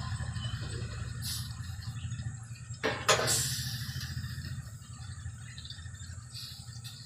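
Coconut milk squeezed from a plastic bag pouring and splashing into a steel pan of fish and water, over a steady low hum. A sharp knock about three seconds in is the loudest sound.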